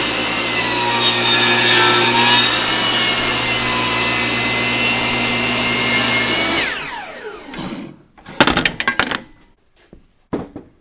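Table saw running with its blade in wood, a steady high whine over the motor hum. About two-thirds of the way in the saw is switched off and winds down with a falling pitch, followed by a few sharp knocks near the end.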